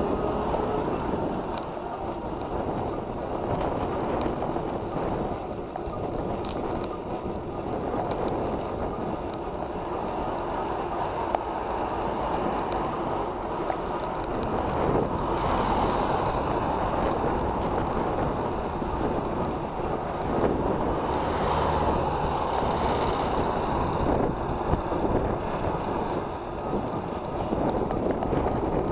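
Steady wind rush on the microphone of a camera moving along a road, with a low rumble beneath it; the rushing swells louder twice, around the middle and about three-quarters of the way through.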